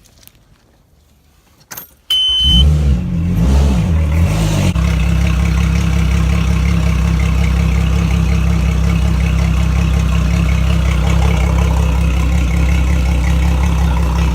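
Mercury Verado outboard motor starting up after its oil change: a short high beep and a click, then it cranks, catches and, after an uneven moment, settles into a steady idle about four to five seconds in.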